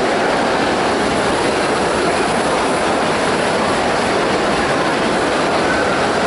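Steady din of a crowded hall: many people talking at once, blurred into one continuous noise.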